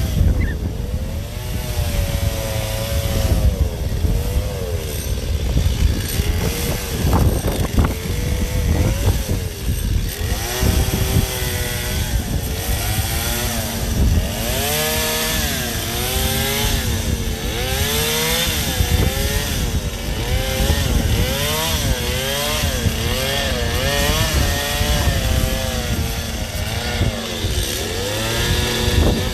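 Gas chainsaw carving a block of ice, its engine pitch rising and falling over and over as the throttle is worked, about once a second in the second half.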